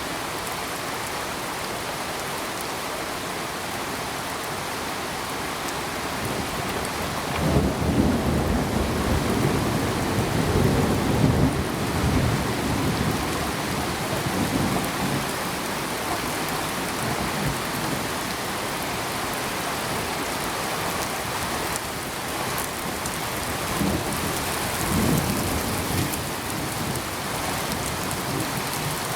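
Steady heavy rain with rolls of thunder: a long loud rumble from about a quarter of the way in, and a shorter, weaker one near the end.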